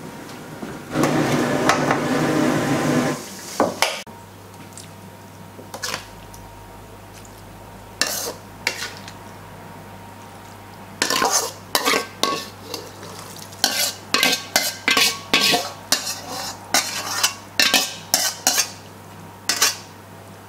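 A metal wok ladle stirring and scraping fermented black beans frying in oil in a wok, loud for about two seconds near the start. Later comes a long run of sharp metallic clinks and knocks as the ladle hits the wok and a stainless steel bowl while the beans and oil are scooped into the bowl.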